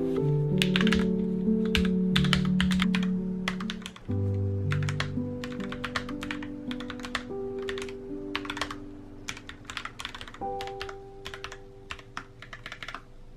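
Typing on a wireless mechanical keyboard with round, typewriter-style keycaps: irregular runs of key clicks with short pauses between words. Background music with held notes plays underneath, fading towards the end.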